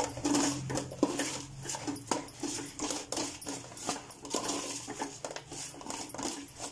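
Metal spoon stirring and scraping a thick, sticky jaggery-coated mass of fried banana pieces around a metal pot, with repeated irregular scrapes and knocks against the pot.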